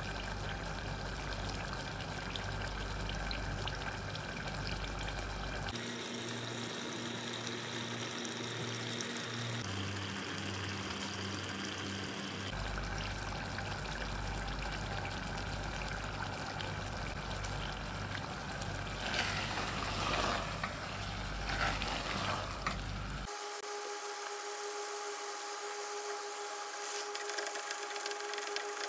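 Cauliflower and tomato curry sizzling as it simmers in a pressure-cooker pot on a gas stove while its water cooks off: a steady hiss that switches abruptly to a slightly different hiss several times. A few brief louder bursts come about two-thirds of the way through.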